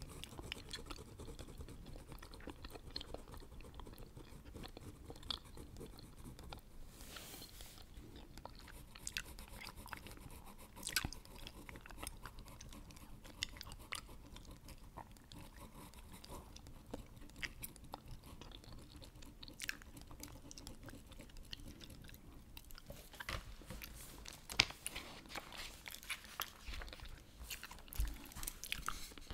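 Chewing gum: irregular wet smacks and clicks throughout. A marker now and then strokes across the paper of a word search book, the longest stroke about seven seconds in.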